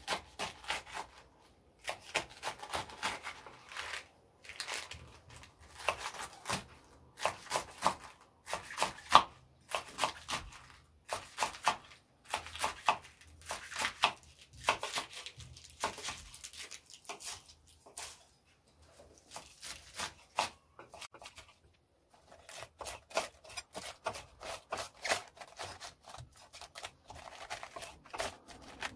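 Kitchen knife slicing through crisp iceberg lettuce on a wooden cutting board: a long run of quick crunching cuts, thinning out for a few seconds after the middle before picking up again.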